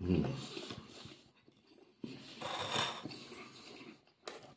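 Close mouth sounds of a man chewing a mouthful of meat and bread, with breathing through the nose, followed by a fork scraping the plate as he picks up another saucy piece of meat.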